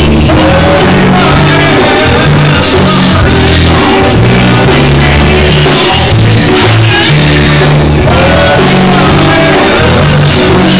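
Rock band playing a song, with a lead vocalist singing over sustained bass and guitar; very loud.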